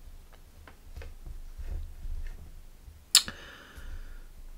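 A few faint small clicks, then one sharp clink about three seconds in that rings briefly in several tones.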